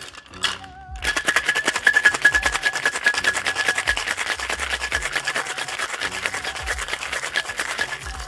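Ice rattling hard inside a metal cocktail shaker as a cocktail is shaken vigorously, a fast, steady run of clatter. It starts about a second in and stops just before the end.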